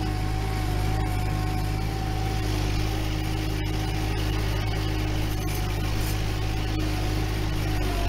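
Kubota M7040 tractor's diesel engine running steadily at a constant pitch under load while pulling a three-furrow plough through the soil.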